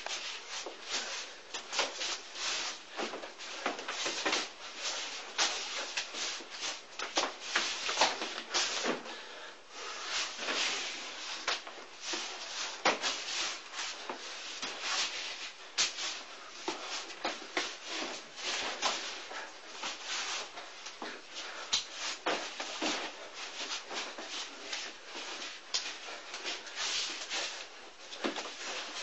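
Hands and forearms slapping and brushing against each other in wing chun chi sao (sticky hands) sparring: quick, irregular slaps, several a second, with a rustle of contact in between.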